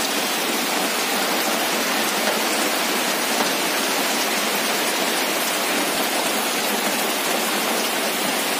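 Heavy rain pouring down steadily on the ground and foliage: a dense, even hiss, loud enough to drown out a voice.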